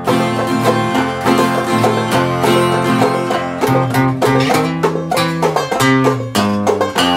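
Clawhammer banjo and acoustic guitar playing a country tune together, the guitar's bass notes running under the banjo's bright picked notes.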